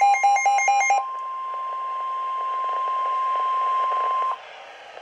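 NOAA Weather Radio 1050 Hz warning alarm tone: a steady single-pitched tone that cuts off about four seconds in, over radio hiss, signalling that a warning is about to be broadcast. A rapid beeping pattern sounds over the tone during the first second.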